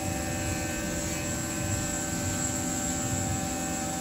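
Tormach 1100MX CNC mill running a finishing contour pass under flood coolant: a steady machine hum with several constant tones over the hiss of the coolant.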